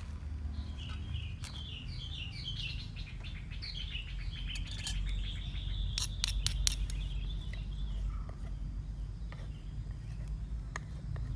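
A songbird singing a long run of quick, repeated chirping notes that ends in a short trill. About six seconds in come a few sharp clicks, from utensils working in a clay mortar.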